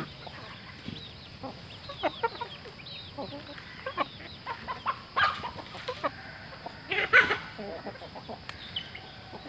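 Chickens clucking: a run of short calls, many falling in pitch, with louder ones about five and seven seconds in.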